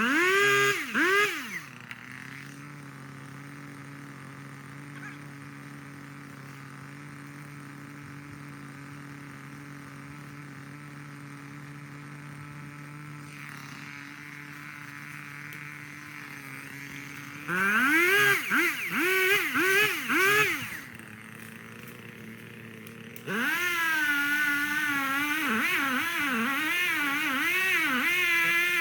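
Echo CS-3510 two-stroke chainsaw idling steadily, revved in a short burst at the start and in a run of quick throttle blips about seventeen seconds in, then held at high revs for the last five seconds with its pitch wavering.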